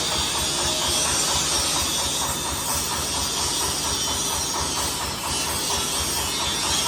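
Corn sheller driven by a 30 hp Dong Feng diesel engine running steadily, with a rapid low engine pulse under a loud hissing, rattling threshing noise.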